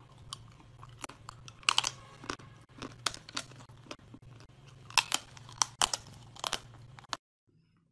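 Crunchy bites and chewing of hard frozen chocolate pieces, with sharp snaps every second or so over a low steady hum. The sound cuts off suddenly near the end.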